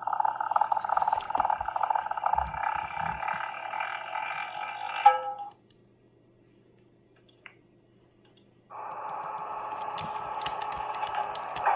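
Excavator engine sound effect: a buzzy, rapidly rattling engine drone for about five seconds that cuts off, then a few faint clicks, then the rattling drone starting again near the end.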